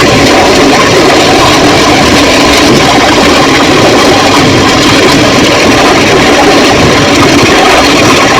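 Car-wash pressure washer running steadily, its water jet spraying hard onto a washing machine's drum and tub parts to clear built-up dust and scale.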